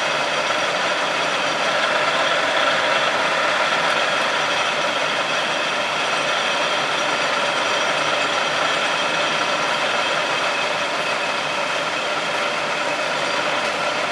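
Davenport five-spindle automatic screw machine running while it cuts alloy-steel socket set screws: a steady mechanical din with several held tones.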